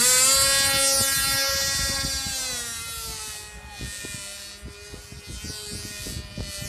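Model airplane engine buzzing at high revs as the aerobatic plane flies, loud at first and fading as it draws away, its pitch dropping a little about two and a half seconds in.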